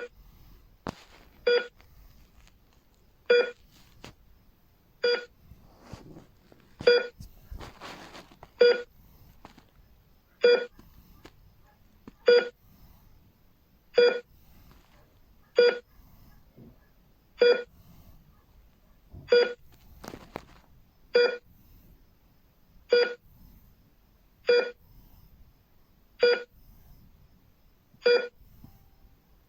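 Hospital heart rate monitor beeping, one short beep of the same pitch for each heartbeat, about every 1.8 seconds, with an extra beep close after the first near the start.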